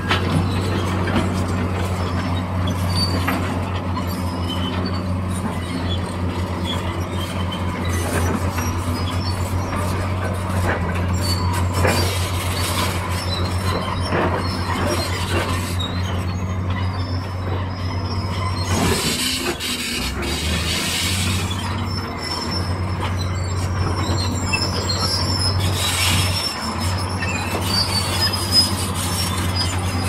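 Bulldozer working: its diesel engine runs steadily under high, thin metallic squeals from the steel crawler tracks. The engine note dips briefly about two-thirds through and again near the end, each time with a rush of noise.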